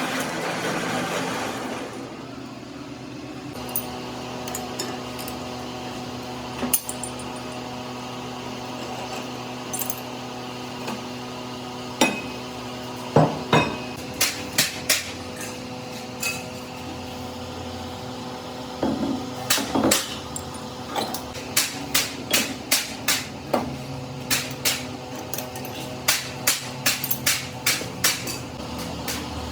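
Hammer blows on metal: scattered strikes at first, then a steady run of about two blows a second through the second half, over a steady hum.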